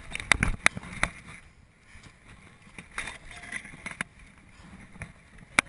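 Irregular sharp knocks and scuffs from a body-worn GoPro action camera being jostled as its wearer moves close to the dirt: a cluster of knocks in the first second, a few more around three to four seconds in, and one sharp knock near the end.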